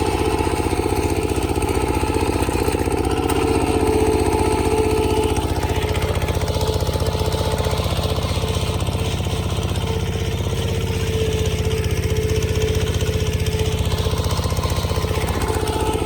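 Heavy machine's engine running steadily at an even speed.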